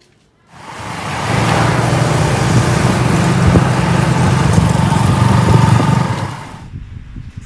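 Motorcycle engine running loudly as the bike rides off, starting about half a second in and cutting off abruptly near the end.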